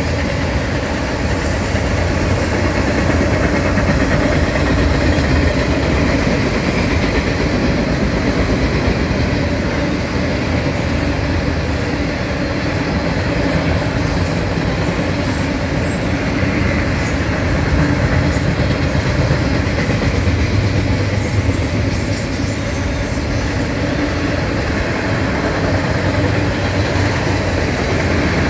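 Unit autorack freight train rolling past: a steady, loud noise of steel wheels running on the rails, with some clickety-clack.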